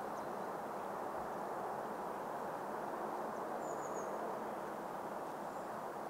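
Steady outdoor background hiss, with a few faint high bird chirps about four seconds in.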